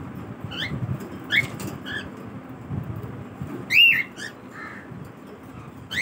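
Cockatiels chirping: a few short rising chirps in the first two seconds, then one louder arched call a little before the four-second mark, over a low steady rumble.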